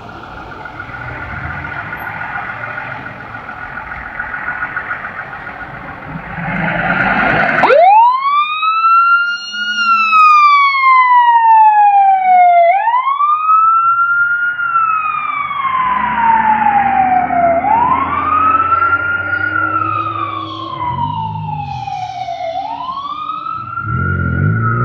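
Fire truck siren starting up about a third of the way in and then cycling in slow wails, each rising quickly and falling more slowly, over the rumble of the truck's engine. Before the siren starts there is a steady humming tone with engine noise.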